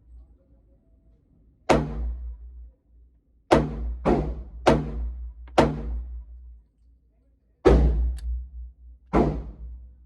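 Seven single gunshots fired one at a time at an uneven pace, about half a second to two seconds apart. Each shot has a fading reverberant tail.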